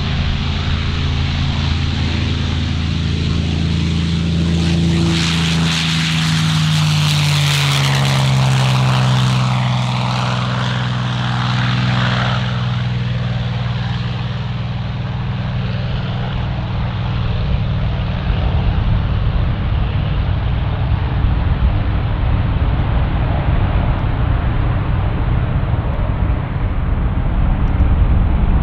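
Rolls-Royce Merlin V12 of a P-51D Mustang passing low at speed with its propeller. It grows louder and brighter as it comes in, then the engine note drops in pitch as it goes past, settling into a lower, steady rumble as it climbs away.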